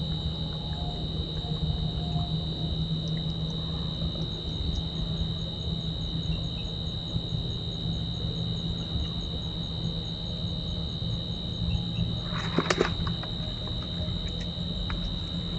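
Night insects droning, two steady high-pitched tones with faint fast regular chirps over them for much of the time, above a steady low hum. About twelve and a half seconds in, a brief scraping clatter cuts through.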